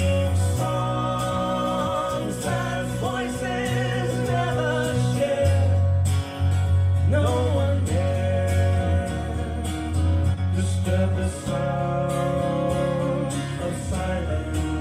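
A song with singing over guitar and a steady bass line, played back through Sony SS-D115 loudspeakers.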